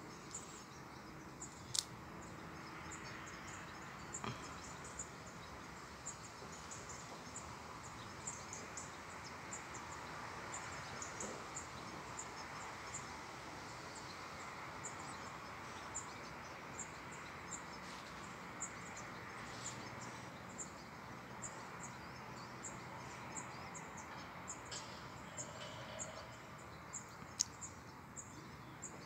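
Faint outdoor ambience: a steady distant murmur with frequent short, high-pitched chirps throughout, and a sharp click about two seconds in and another near the end.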